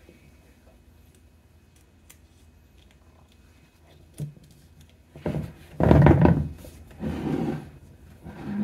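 Handling noise from hands working tape and stiffened tulle on a plastic mannequin head: a few faint clicks, then from about five seconds in several loud rustles and rubs close to the microphone.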